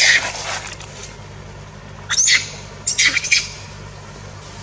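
Baby monkey screaming in shrill, short calls that sweep down in pitch: one at the start, another about two seconds in, and a quick cluster around three seconds in.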